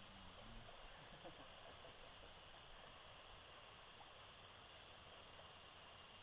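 Steady, high-pitched chorus of insects, with a faint voice in the first second.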